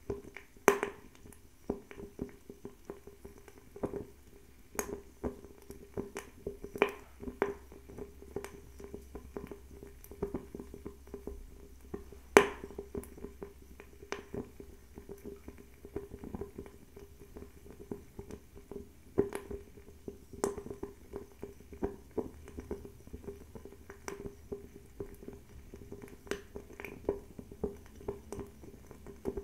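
Fire crackling: irregular sharp pops and snaps, with a few louder cracks, one about a second in and the loudest a little before halfway, over a steady low hum.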